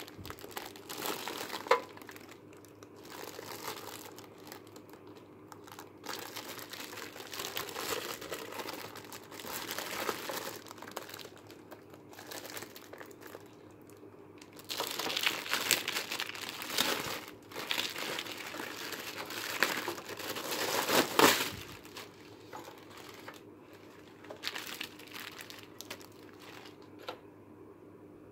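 Plastic packaging, bubble wrap and the plastic film around the unit, crinkling and rustling as it is handled and pulled aside. It comes in uneven bouts, with the loudest stretch a little past the middle.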